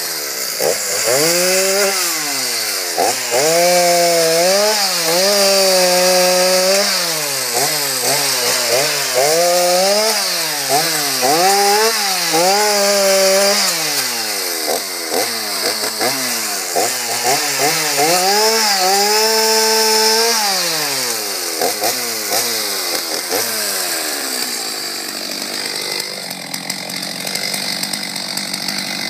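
Stihl 039 two-stroke chainsaw cutting apple-tree branches, revving up and down over and over with each cut. Near the end the revving stops and a lower, steadier sound remains.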